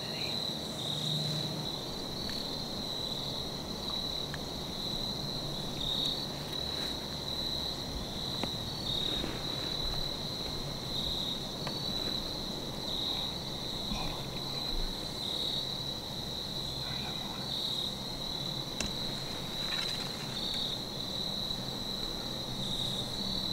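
Steady high-pitched insect chorus of crickets or katydids trilling in the woods, pulsing slightly, with a few faint ticks.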